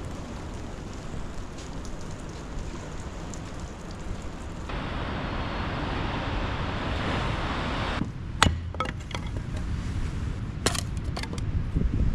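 Steady rushing noise of the beach, growing louder about halfway through. It then gives way to sharp knocks and clinks of split kindling and firewood being handled and laid in a steel campfire ring, the loudest knock coming just after the change.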